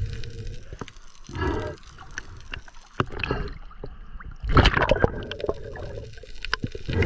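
Water gurgling and sloshing, heard underwater, in several irregular bursts.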